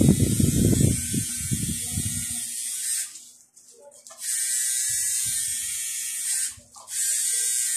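Electric tattoo machine buzzing steadily as the needle works ink into skin. It stops for about a second around three seconds in, and again briefly near the end. Under it, a low irregular rumble runs through the first two seconds or so.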